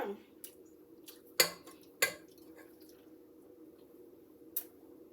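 Kitchen utensils clinking against dishes: two sharp knocks about half a second apart, then a lighter one near the end, over a steady low hum.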